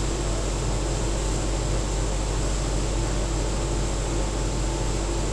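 Steady machine hum and hiss with a low drone underneath, unchanging throughout.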